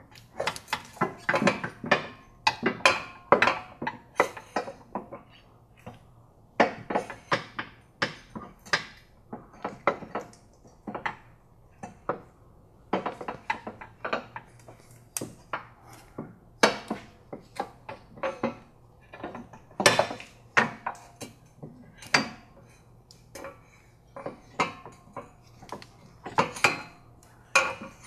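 Steel rear sway bar of a VW Golf GTI Mk7 clanking and rattling against the rear suspension and underbody as it is twisted and rocked free of the control arms. Irregular metallic knocks, several a second in places.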